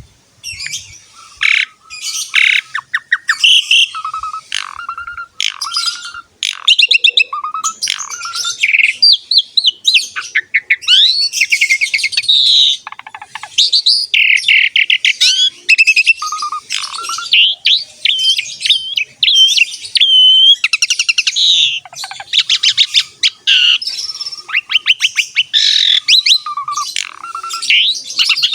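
Asian pied starling (jalak suren) singing in full song: a long, varied run of rapid clicking trains and whistled notes that glide up and down, with short pauses between phrases. It starts about a second in.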